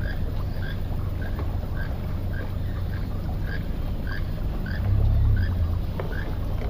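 Tour boat's motor running with a steady low hum that swells briefly about five seconds in. Over it, a short call repeats about every half second.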